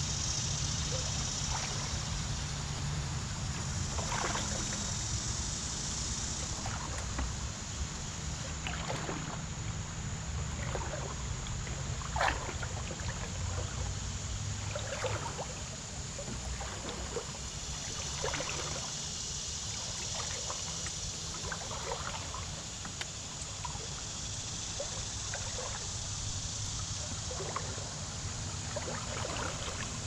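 River water trickling and lapping against a canoe's hull as it drifts, in many small irregular splashes over a steady low rumble and a high hiss. One sharper knock comes about twelve seconds in.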